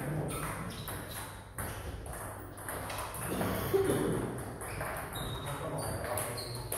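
Table tennis ball clicking off rackets and the table in irregular quick hits during play.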